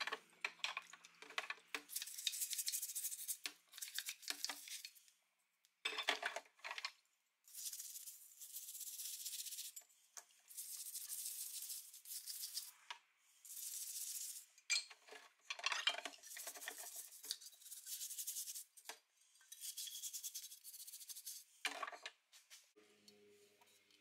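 Metal parts clinking against a steel tank and basket, then a small stiff bristle brush scrubbing a metal part in repeated strokes of one to three seconds each, with short pauses and light clinks between them.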